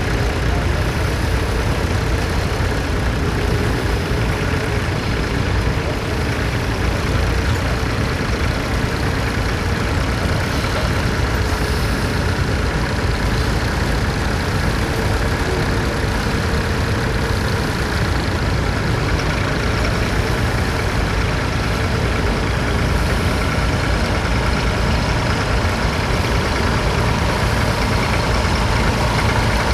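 Vintage tractor engine running steadily, with no change in speed.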